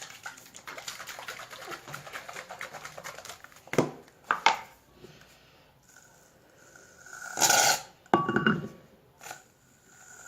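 Shaving foam sputtering out of an aerosol can with a crackling hiss for about four seconds, followed by two knocks and a second short burst a little after the middle.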